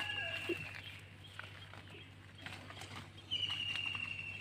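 A bird's high, thin whistled call, held about a second and falling slightly in pitch, heard twice: once at the start and again near the end. Faint rustles and snaps in the undergrowth come in between.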